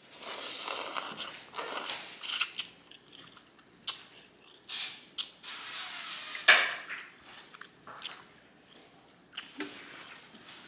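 Ramen noodles being slurped and chewed close to the microphone: about four separate hissing slurps with wet chewing between them.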